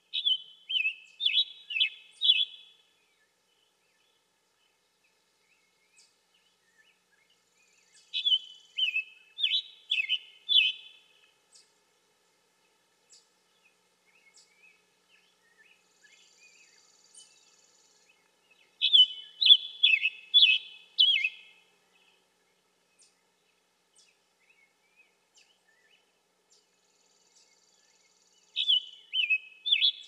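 Male scarlet tanager singing: four bursts of song, each a quick string of short phrases lasting two to three seconds, repeated about every nine to ten seconds, the last starting near the end.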